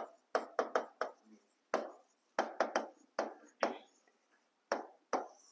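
A stylus tapping on the glass of an interactive touchscreen board while words are written: about a dozen short, sharp taps at irregular intervals, with a pause of about a second near the end.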